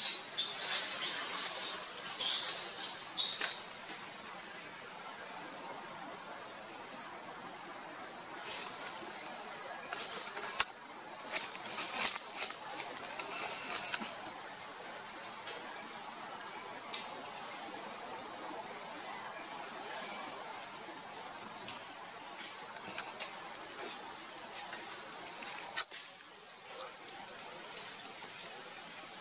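Steady, high-pitched insect chorus, with a few sharp clicks about ten to twelve seconds in and again near the end.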